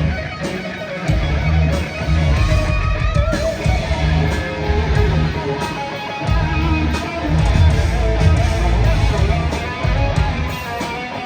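Live heavy metal band playing an instrumental passage: distorted electric guitars over bass and drums, with the low end dropping out for a moment twice and a short bending guitar lead a couple of seconds in.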